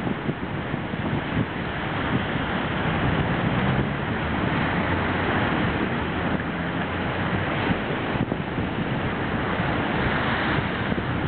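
Rough sea with big waves surging and breaking against a seawall, mixed with strong wind buffeting the microphone. The surf swells louder a couple of seconds in and again near the end.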